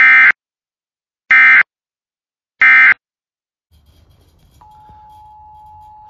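Emergency Alert System end-of-message data bursts: three short, loud, buzzy digital bursts about 1.3 seconds apart, signalling that the alert message is over. After them a faint hum comes in, and about three-quarters of the way through, a faint steady tone.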